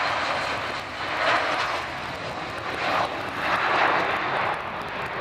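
Boeing 757 twin jet engines at takeoff thrust as the airliner lifts off and climbs away. The loud rushing noise swells and eases several times.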